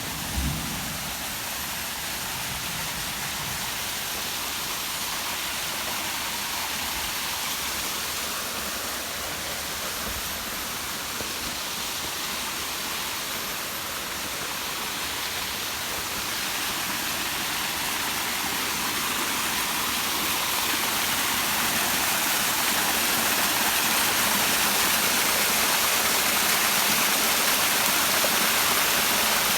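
Waterfall rushing steadily, the sound slowly growing louder a little past halfway and then holding.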